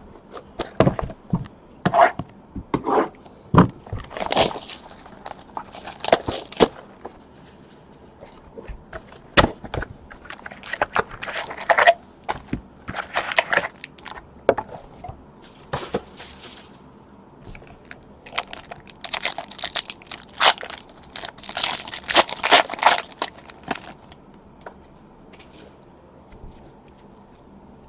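Wrappers crinkling and tearing as sealed trading-card packs are ripped open and the cards handled. It comes in scattered short bursts with pauses between them, with a longer stretch of crinkling about two-thirds of the way through.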